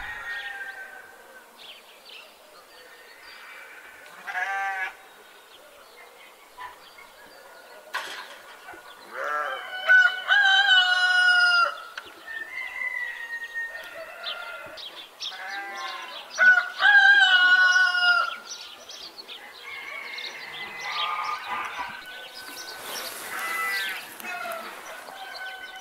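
Farmyard animal sounds: chickens clucking and calling, with two loud, wavering sheep bleats of about a second and a half each, the first about ten seconds in and the second about seventeen seconds in.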